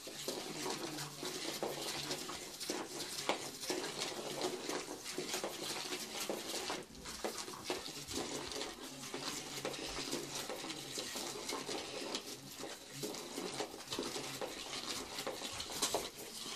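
Battery-powered undercover cat toy running: a low steady motor hum while the wand sweeps around beneath the nylon cover, rustling and scraping against the fabric and cardboard, with many small clicks and taps.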